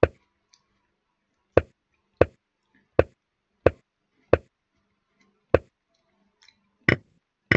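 Digital chess board's piece-move sound, a short wooden-sounding knock for each move as the game is stepped through. About nine knocks come at uneven intervals of roughly half a second to a second and a half.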